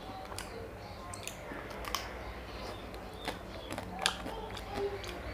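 Biting and eating a chocolate-coated ice cream bar: scattered sharp cracks as the hard chocolate shell breaks, with chewing between them.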